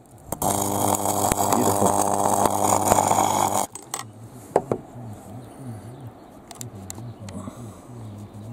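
Portazap 4400 high-voltage wasp zapper arcing through paper wasps and their paper nest: a loud, steady electrical buzz with crackle that cuts off suddenly about three and a half seconds in. After that only faint scattered snaps and ticks remain as the charred nest smoulders.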